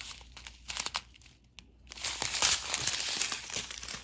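Small plastic packets of resin diamond-painting drills crinkling as they are handled, with scattered rustles at first and steadier, louder crinkling from about two seconds in.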